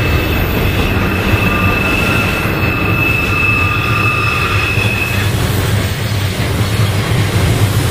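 Double-stack container well cars of a BNSF intermodal train rolling past on a curve: a steady rumble of wheels on rail, with a high wheel squeal of several tones that stops about five seconds in.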